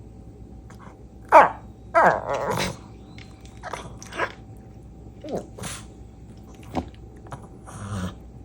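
Long-haired chihuahua 'talking': a string of short whining, grumbling calls, several falling in pitch, the loudest about a second and a half in, made instead of barking.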